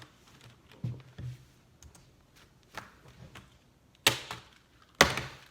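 A few scattered taps and knocks on a hard surface, light at first, with two loud sharp knocks about a second apart near the end.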